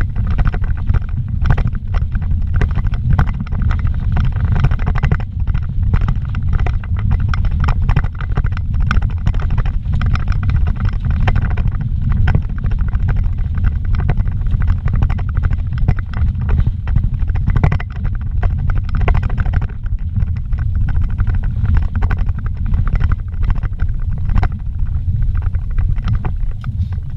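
Car driving fast over a rough dirt track, heard inside the cabin: a heavy, steady low rumble from tyres and suspension with constant rattling and knocking as it bounces over rocks and ruts.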